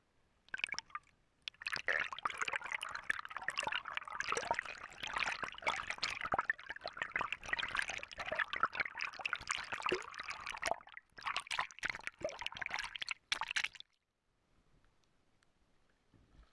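Stream water heard through an underwater GoPro: dense crackling and gurgling that stops suddenly about fourteen seconds in, leaving a faint hiss.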